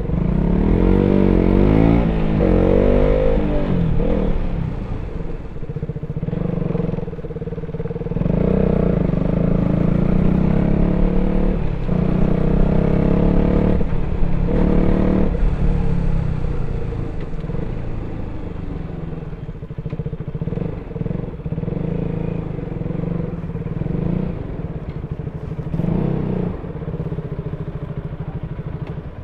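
KTM RC 200's single-cylinder engine through its stock exhaust, revving up and down several times in the first few seconds, pulling hard for several seconds around the middle, then easing off to a lower, quieter run near the end.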